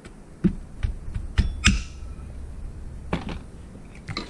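Handling noise from working on a chainsaw's plastic housing with hand tools: a scattered run of clicks and knocks, the loudest a sharp metallic click with a short ring about a second and a half in.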